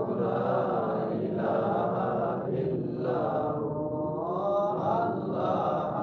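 A man chanting Islamic dhurood and zikir: one continuous melodic vocal line of long, drawn-out notes that rise and fall in pitch.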